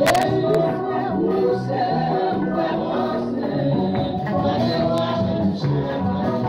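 Church choir singing a Haitian Creole gospel song with a band: a bass line under the voices and a few sharp percussion hits.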